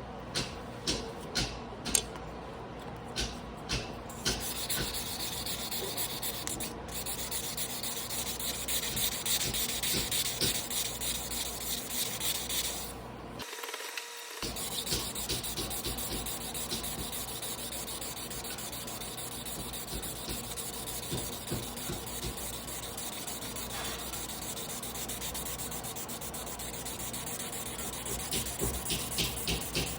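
Damascus carbon-steel sashimi knife blade being stroked back and forth by hand on a whetstone, a wet scraping rub. It starts as separate strokes about two a second, then turns to fast, continuous rubbing with a short break about halfway through.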